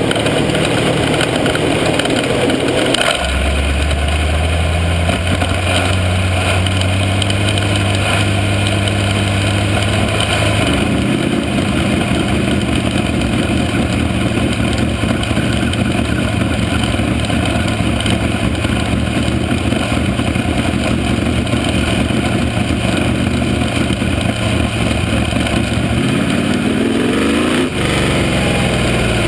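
Dirt-track race car engine heard from on board, running at low, steady revs that settle in about three seconds in and shift about ten seconds in. It revs up with a rising pitch near the end.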